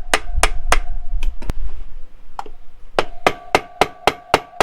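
Hammer blows on a block of wood held against an enduro bike's rear wheel spindle, driving the spindle out of the swingarm. The strikes come in a steady run of about three a second, pause briefly in the middle, then resume, each with a short ring. Wind rumbles on the microphone during the first half.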